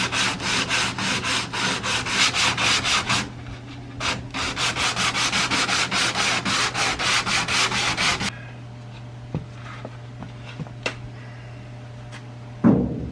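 Sandpaper scrubbing over the old painted steel of a truck cab in quick, even strokes, about five a second, with a short break around three seconds in, stopping about eight seconds in. A low steady hum carries on underneath, and a single thump comes near the end.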